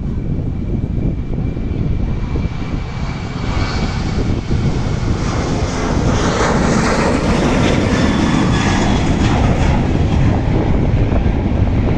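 Boeing 737-700's CFM56-7B jet engines at takeoff power, a dense noise that swells about five seconds in and stays loudest through the second half.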